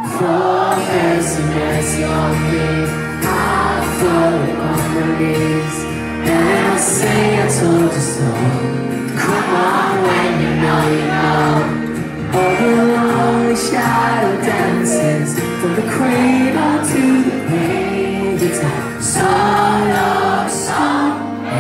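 Live band music with singing, heard from the audience at a concert.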